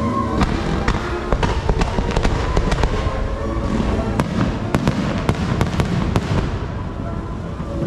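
Fireworks going off in a dense run of sharp bangs and crackles, thinning out near the end, with music playing underneath.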